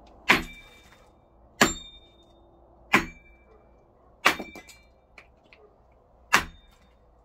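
Carbon-steel butcher's cleaver chopping into a wooden board on a tree stump: five sharp strikes over about six seconds, each with a short ring after the hit, splitting the wood.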